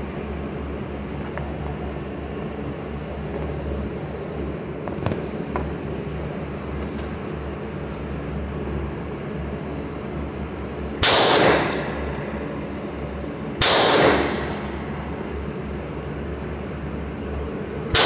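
Hi-Point CF380 .380 ACP pistol fired three times, the shots a few seconds apart, each followed by a short echo in an indoor range, over a steady low hum. The first shot comes a little past halfway and the last at the very end.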